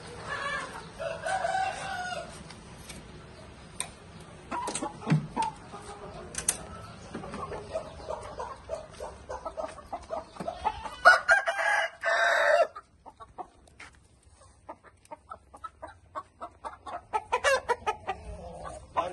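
Roosters clucking and calling, with one loud rooster crow about eleven seconds in that cuts off sharply, amid scattered light knocks.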